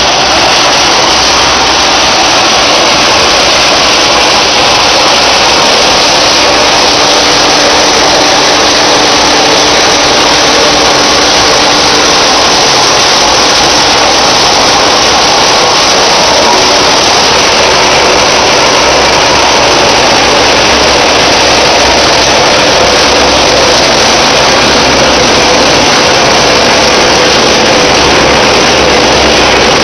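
Loud, steady mechanical din of a PET bottle recycling line running: belt conveyor and label-scraping machinery with their motors, an even noise with no distinct strokes.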